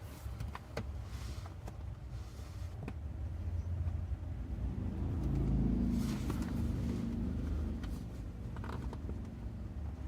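Hands working at a car seat back's upholstery and plastic panel: scattered rustling and a few sharp clicks over a steady low rumble.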